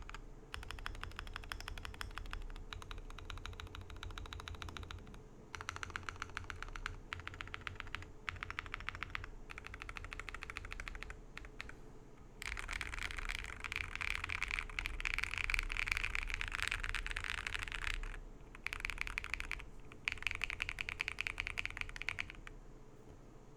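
Typing on a Weikav Record V2 mechanical keyboard with Akko V3 Cream Blue Pro tactile switches: fast, continuous runs of keystrokes broken by brief pauses. The clatter gets louder and denser about halfway through and stops shortly before the end.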